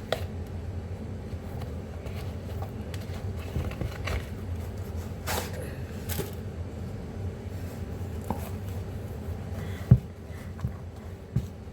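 Small handling noises, soft scrapes and clicks, as a new New Balance sneaker is tried on, with one sharp knock about ten seconds in, over a steady low hum.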